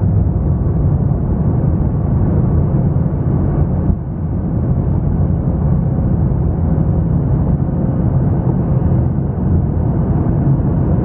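Boeing 737 jet engines running at high power on the takeoff roll, heard from inside the cabin as a loud, steady roar that is heaviest in the low end.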